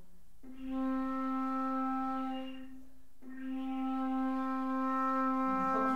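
Concert flute holding a long, steady low note around middle C, at the bottom of the flute's range. It plays the note twice, with a short breath between them about three seconds in. Another wavering sound joins near the end.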